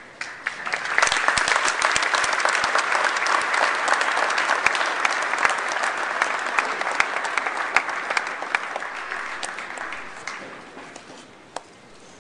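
Crowd applauding: many hands clapping, starting about a second in and dying away near the end.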